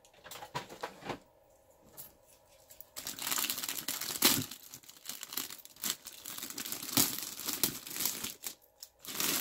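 Packaging wrapping being crinkled and torn open by hand: a few light clicks, then about three seconds in a long stretch of dense crinkling and tearing with sharp crackles, a brief pause, and more crinkling at the end.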